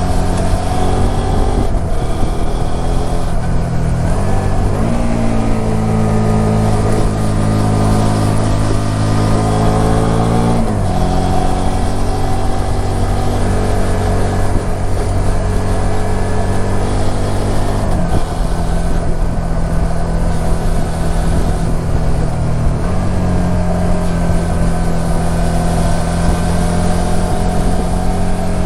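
Suzuki SV400S V-twin engine pulling the bike along, its note rising as it revs up and then dropping abruptly at gear changes several times.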